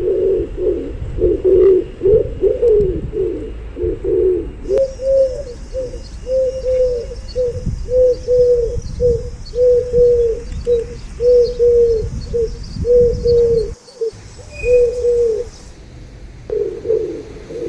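Pigeons cooing: a long series of low, short coos, one after another, with a brief break near the end.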